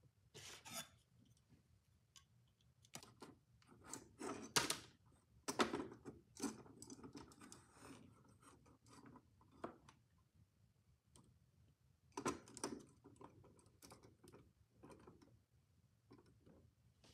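Packaging and a product being handled by hand during unboxing: scattered rustles, clicks and taps, in bursts with quieter gaps between.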